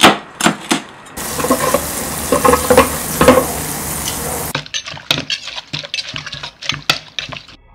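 A run of kitchen sounds: a few sharp chops of a cleaver through crispy pork belly on a cutting board, then about three seconds of hissing sizzle, then rapid knocking as a pestle pounds green papaya salad in a mortar.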